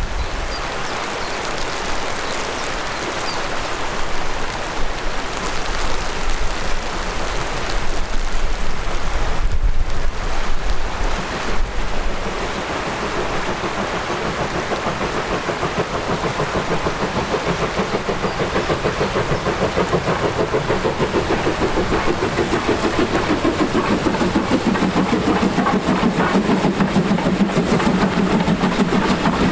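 Wind buffeting the microphone with a low rumble, then a BR Standard Class 2 2-6-0 steam locomotive, No. 78022, approaching with a train. Its regular exhaust beats start about halfway through and grow steadily louder toward the end.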